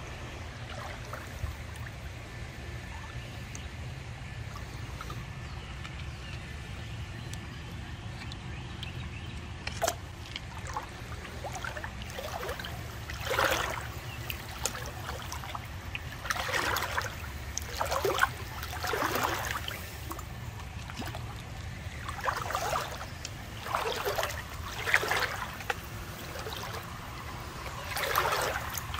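Water trickling in a shallow creek, and from about halfway through, splashes every second or two as footsteps wade through the water.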